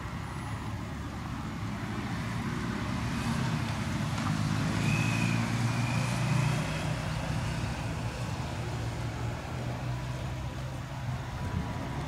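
A motor vehicle's engine running on the road, a low hum that grows louder toward the middle and then eases off as it passes.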